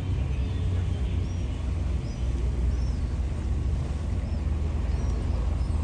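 Outdoor harbour ambience: a steady low rumble, with a small bird's short, high chirps repeating every second or so from about a second in.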